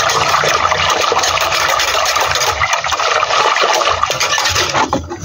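Thin crepe batter of flour, eggs, water and oil being stirred fast in a metal pot, a steady wet swishing with fine rapid scraping against the pot. The batter is being mixed until smooth.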